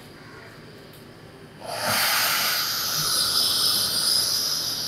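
Gas burner of a portable LPG-cylinder stove hissing steadily. The hiss starts suddenly about one and a half seconds in.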